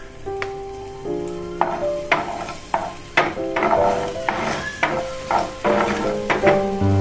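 Sliced garlic and shallots sizzling in hot oil in a frying pan while being stirred with a spatula, with repeated crackling scrapes from about a second and a half in. Soft background music with held notes plays underneath.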